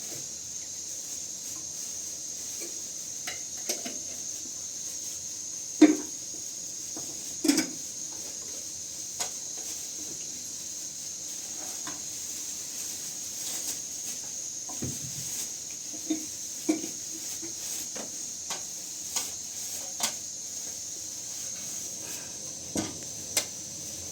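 Scattered clinks and knocks of pots, dishes and utensils being handled, about a dozen spread irregularly, the loudest about six seconds in and again at seven and a half, over a steady high hiss.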